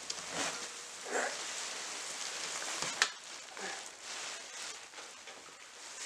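Plastic bubble wrap rustling and crinkling as it is handled and pulled aside, with a sharp click about halfway through.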